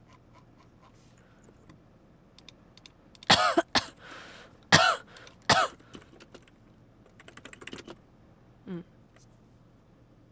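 A person with a cold coughing, four or five harsh coughs in two quick groups about three seconds in, with a breath between them. Soft computer-keyboard typing clicks before and after.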